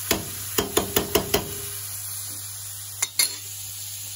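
A metal spoon knocking against a frying pan, six quick knocks with a short metallic ring, then two more about three seconds in, while olives and vegetables sizzle steadily in the pan.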